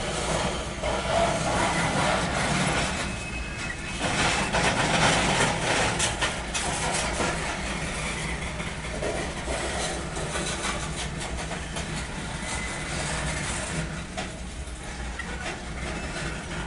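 Loaded coal hopper cars of a freight train rolling past: a steady rumble of steel wheels on rail, with bursts of clicking and clatter that are loudest between about four and seven seconds in.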